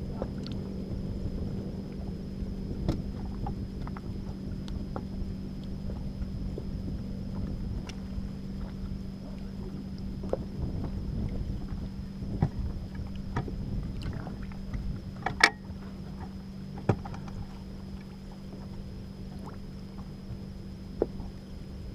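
A small motor running steadily, with scattered knocks and clicks over it; the loudest knock comes about fifteen seconds in.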